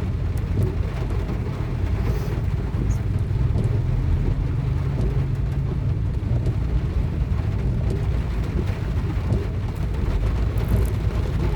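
Rain falling steadily on a car, heard as a dense, even low rumble with a few faint high ticks of drops striking.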